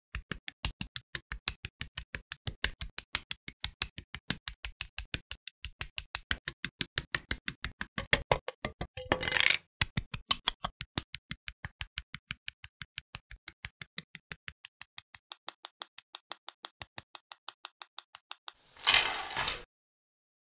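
Rapid, evenly spaced sharp clicks, about five a second, from side-cutting sprue nippers snipping plastic model-kit parts off their runners, set to a steady beat. Two short bursts of noise come about halfway through and near the end.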